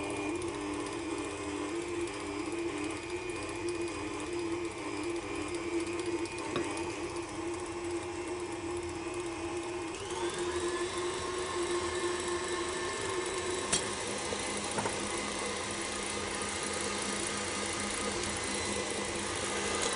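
KitchenAid stand mixer motor running steadily, beating crème pâtissière as butter is added to it. Its pitch steps up slightly about halfway through, and a single brief click comes a few seconds later.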